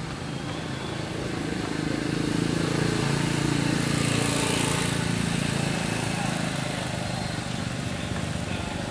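A motor vehicle's engine passing by, growing louder to a peak midway and then fading.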